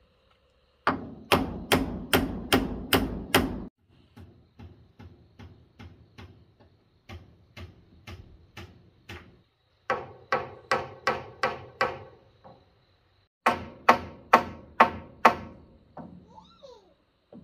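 Hammer blows in quick runs of about seven or eight, roughly three a second, with lighter, quieter strikes between the runs.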